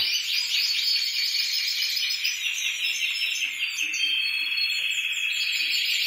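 Spanish timbrado canaries singing in cages, a few at once: fast, clean, metallic rolling trills, with one steady held note coming in about four seconds in.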